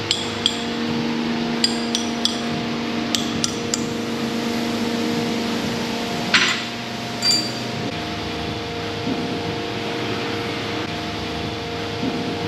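Ball-peen hammer tapping a tool held against the steel end of an excavator hydraulic boom cylinder: about eight light, ringing metallic taps in the first four seconds, then a louder clank about six seconds in and a ringing clink a second later. A steady machine hum runs underneath.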